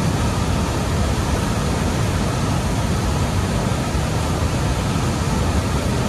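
Large waterfall plunging into a churning pool: a loud, steady rush of falling water, heaviest in the low end.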